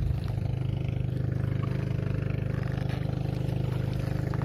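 Small engine running steadily with a fast, even throb.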